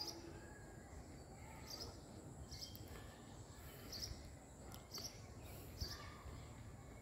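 Faint outdoor ambience: a steady high insect drone, with short high chirps repeating about once a second.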